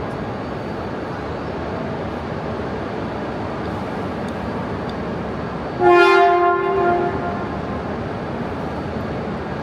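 Shinkansen train creeping slowly into the platform with a steady rumble, and one loud horn blast about six seconds in that lasts about a second before fading. This is the Komachi coming up to couple with the waiting Hayabusa.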